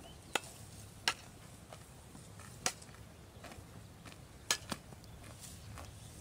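Water buffalo calf grazing, tearing grass: a handful of sharp, separate snaps, two in quick succession a little after the midpoint.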